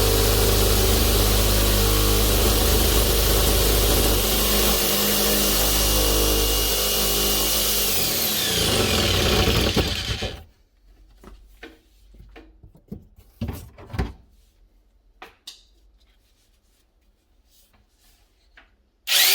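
Bosch PST 700 E jigsaw running and sawing wood for about ten seconds, then its motor winding down in pitch and stopping. A quiet stretch follows with scattered clicks and knocks, and the saw starts up again sharply near the end.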